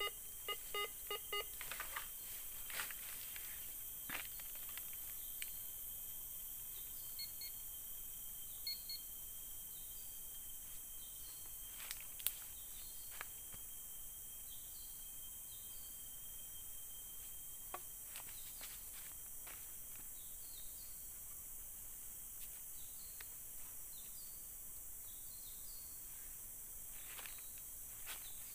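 Metal detector giving a quick run of short beeps as its coil sweeps over a freshly dug spot, signalling metal in the soil. Then a steady high hiss with faint chirps and a few scattered clicks and rustles of hands digging in soil and dry leaves.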